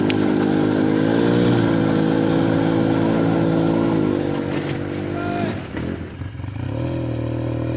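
Off-road vehicle engine running at high revs under load. The pitch rises slightly about a second in, then drops to a lower idle about five and a half seconds in.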